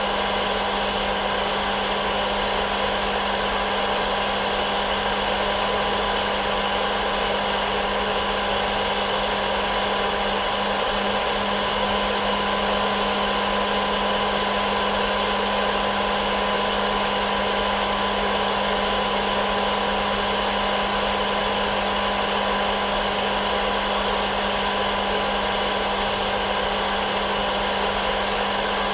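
Hair dryer running at one steady speed: an even rush of air over a constant motor hum, with no change in pitch or level.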